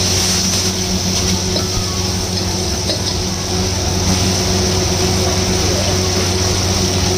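Chicken, garlic and onion frying in a wok over a steady low machine hum from the kitchen, with a few light clicks of the steel ladle against the wok.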